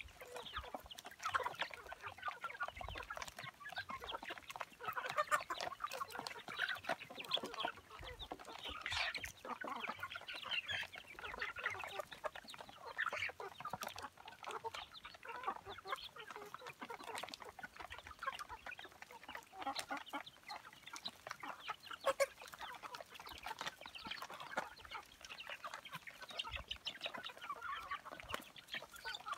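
A large flock of chickens feeding, clucking continuously with many short calls overlapping one another.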